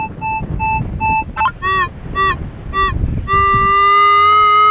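Minelab CTX 3030 metal detector sounding a strong target signal: a quick run of short high beeps, then a few lower warbling beeps, then a steady held tone from about two-thirds in. Wind rumbles on the microphone underneath.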